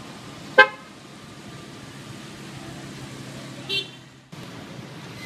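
A short, loud horn toot about half a second in, then a shorter, higher-pitched toot a few seconds later, over a steady idling engine.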